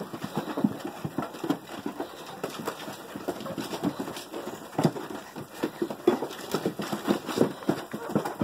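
A litter of Rottweiler puppies scrambling over one another on wooden boards, their claws and paws making quick, irregular clicking and scrabbling taps as they jump for a toy.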